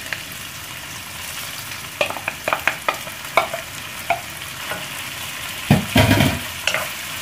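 Sliced mushrooms, bacon, onion and garlic sizzling in olive oil in a non-stick wok. From about two seconds in, a wooden spoon stirs and clacks against the pan, with one louder thump about six seconds in.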